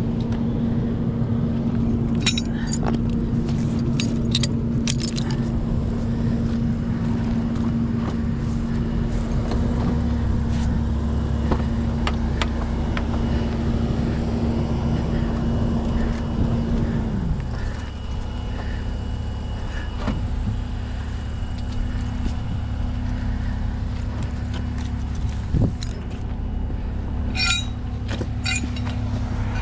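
Peterbilt 337 rollback tow truck's diesel engine running steadily at a raised idle, then dropping to a lower idle a little past halfway. A tow chain and hooks clink a few times near the start and again near the end.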